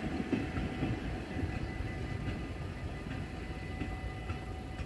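Steam train rumbling along the rails as it moves away, the sound gradually fading.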